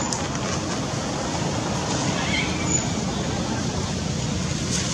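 Steady rushing outdoor background noise, with a brief faint chirp about two seconds in.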